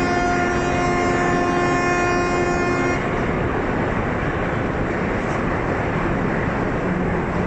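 Cruise ship's horn, the MSC Divina's, sounding one long steady blast of several notes together for about three seconds, then cutting off abruptly, leaving a steady rush of background noise.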